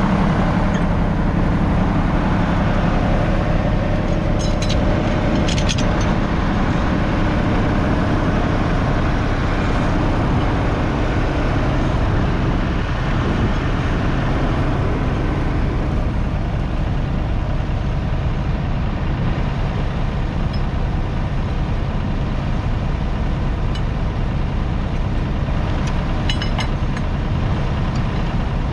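Massey Ferguson 420's 3.3-litre three-cylinder diesel engine running steadily at a tick-over, with a couple of faint clicks.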